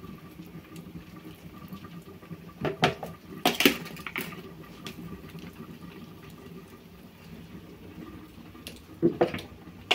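Water dripping and splashing as scalded beef tripe and bones for panelada are lifted out of their hot water, with a few short knocks against the pot about three and four seconds in and again near the end.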